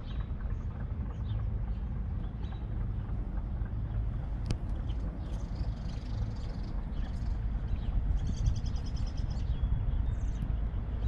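Birds chirping over a steady low rumble, with a rapid bird trill about eight seconds in.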